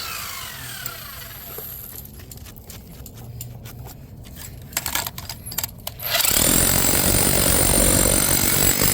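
A power tool spins down with a falling whine, then a few clicks of handling, and about six seconds in a power tool starts up again and runs loud and steady.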